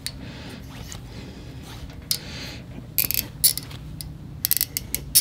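Helicoil tap turned by hand in a tap wrench, cutting threads in metal: light scraping with sharp clicks and crackles, a cluster about three seconds in and another about four and a half seconds in.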